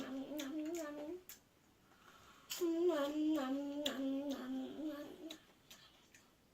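A child's voice singing a little tune in two phrases, the first ending about a second in and the second starting about two and a half seconds in.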